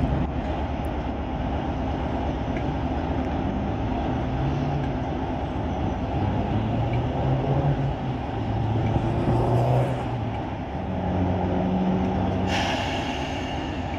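Class 47 diesel locomotive's Sulzer twelve-cylinder engine idling steadily while standing. Near the end a sudden hiss of released air starts.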